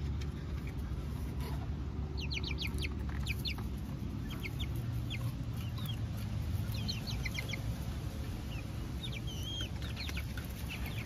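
Hens clucking and chirping in short high calls, several little clusters of them, over a steady low background rumble.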